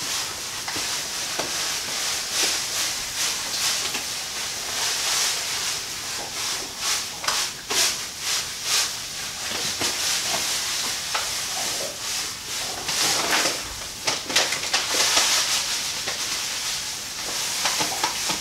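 Crushed malted barley pouring from a paper bag into the hot water in a cooler mash tun while mashing in: a steady hiss of falling grain, with many short crackles from the crinkling paper bag.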